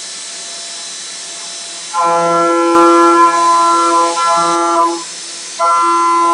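CNC machining center milling aluminium with an indexable insert cutter at high spindle speed. A steady hiss, then, about two seconds in, a loud steady whine with many overtones as the cutter bites. It drops out briefly near five seconds and comes back.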